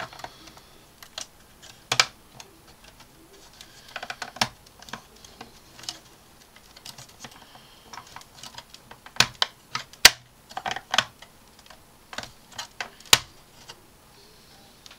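Irregular sharp clicks and taps of hard plastic being handled: a plastic model ship hull and plastic spring clamps being shifted and knocked together, with the loudest clicks bunched about two-thirds of the way through.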